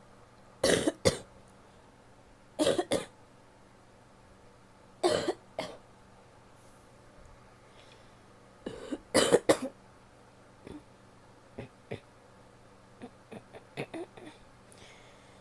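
A woman coughing in four bouts of two or more coughs each, a couple of seconds apart, the last bout the longest. A few faint short sounds follow near the end.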